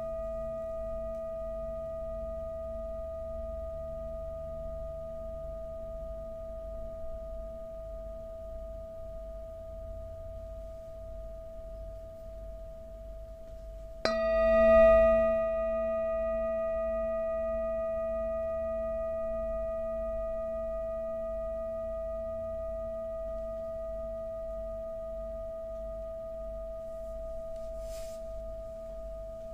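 Singing bowl ringing with a steady hum and several higher overtones, slowly fading. About halfway through it is struck again with a wooden mallet; the ring swells sharply, then dies away slowly.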